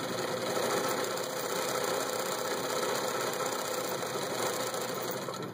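Vintage Bernina Record 830 sewing machine running on its low speed setting, motor humming and needle mechanism chattering steadily as it stitches a built-in decorative pattern into cloth. It stops near the end.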